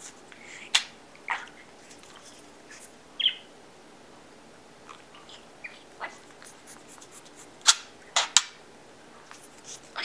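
Budgerigar giving short, sharp chirps with quiet gaps between, about seven in all, the three loudest close together near the end.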